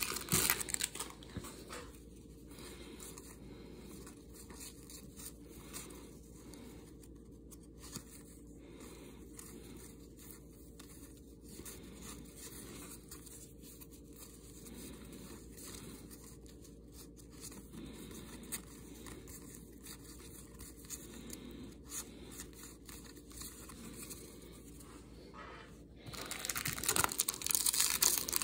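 Foil wrapper of a 1991 NFL Pro Line card pack crinkling in the first second or so. Then comes a long quiet stretch of faint card handling as the cards are thumbed through. About two seconds before the end, louder crinkling and tearing starts as the next foil pack is torn open.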